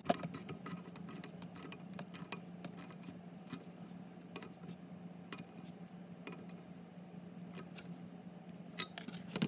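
Hand ratchet clicking in short, irregular runs as it tightens the nut of a turbocharger's V-band clamp, with two louder clicks near the end. A steady low hum runs underneath.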